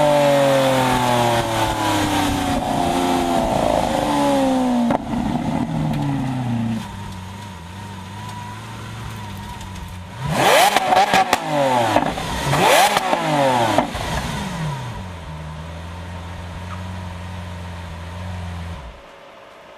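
Lamborghini Aventador Roadster's 6.5-litre V12 heard from the open cabin. Its revs fall away over the first several seconds, it runs low and quieter for a while, then gives a handful of sharp throttle blips about ten seconds in, the loudest moment. It settles to a steady idle and stops near the end.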